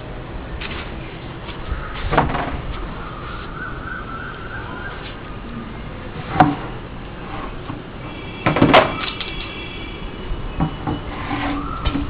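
A plastic bucket being picked up and knocked about on a concrete floor: a few sharp knocks about two, six and nine seconds in, the last with some scraping after it.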